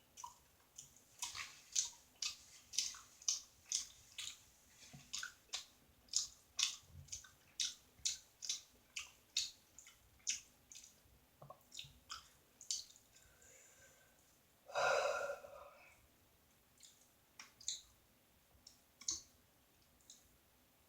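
Close-up wet mouth sounds of eating: chewing and lip-smacking clicks, about two to three a second, thinning out after about thirteen seconds. About fifteen seconds in there is one louder, longer mouth sound lasting about a second, followed by a few scattered smacks.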